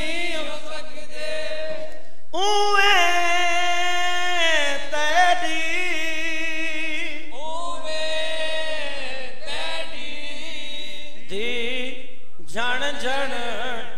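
Male voice chanting a Punjabi noha (mourning lament) unaccompanied through a microphone. It sings long drawn-out lines that rise and then fall, with short breaks for breath about two seconds in and near the end.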